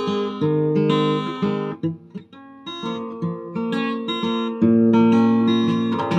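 Acoustic guitar playing an instrumental passage of chords between sung lines, each chord ringing on. It goes softer about two seconds in, and a loud strummed chord comes about four and a half seconds in.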